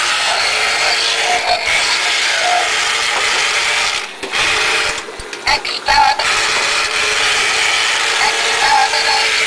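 Small electric drive motor and gears of a motorised toy Dalek whirring steadily as it drives along, dropping out briefly about four seconds in and again about a second later.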